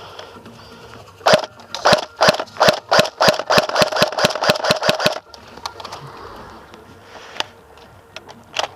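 Airsoft gun firing a rapid string of shots, about seventeen sharp cracks speeding up to roughly five a second, which stops abruptly; two single shots follow near the end.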